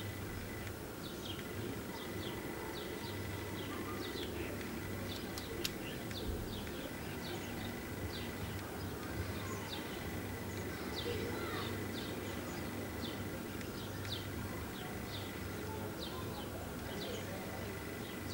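Small birds chirping in the background, short high chirps several times a second in no regular rhythm, over a steady low hum. One sharp click about six seconds in.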